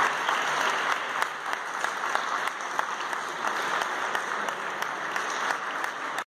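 Spectators applauding in a sports hall, a dense patter of claps at first that thins to scattered claps, then cuts off abruptly near the end.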